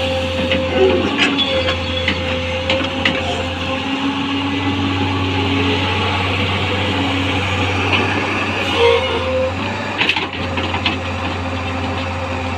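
L&T-Komatsu PC200 hydraulic excavator's diesel engine running under working load, with a steady hydraulic whine that dips a few times as the boom and swing are worked. Scattered clunks and knocks come through it.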